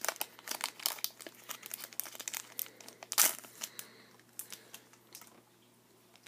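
Pokémon card booster pack wrapper crinkling as it is torn open and handled: a dense run of sharp crackles, the loudest about three seconds in, then a few scattered ones dying away.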